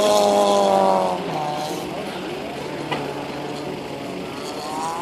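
A car engine running at high revs, loud at first, then dropping in pitch and fading a little after a second in as the car moves off; a similar engine note rises again near the end.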